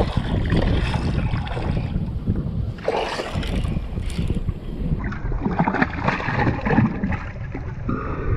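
Wind rumbling on the microphone over water moving around a kayak, with louder noisy stretches about three seconds in and again from about five seconds on.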